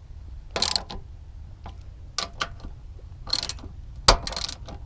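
Socket ratchet clicking in several short runs as the strut tower brace nuts are snugged down, with a sharp click about four seconds in.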